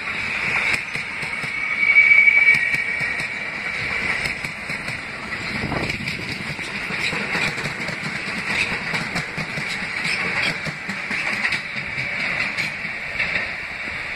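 New York City subway train of R160 cars running along the tracks: a steady high squeal of steel wheels on rail, loudest about two seconds in, over a low rumble and irregular clicks of wheels over rail joints, fading as the train pulls away.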